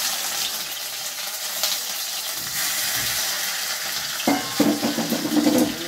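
Whole pomfret frying in hot oil in a kadai, sizzling steadily just after being slid into the pan. Near the end a short pitched sound rises above the sizzle.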